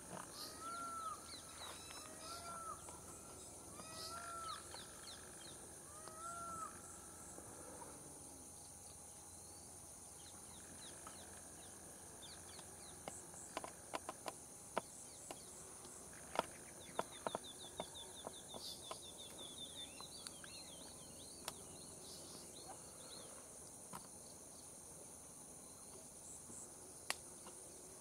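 Faint outdoor wildlife ambience. A bird repeats short arched call notes every second or two for the first several seconds, over a steady high-pitched insect drone. Later come scattered sharp clicks and a brief rapid trill.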